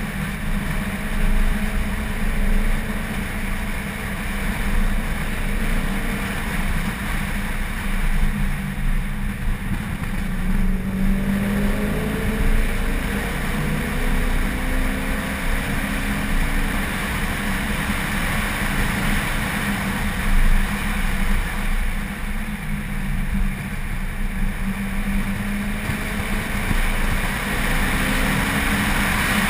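Car driven hard on a race track: continuous engine and road noise, the engine pitch rising and falling with throttle and gear changes.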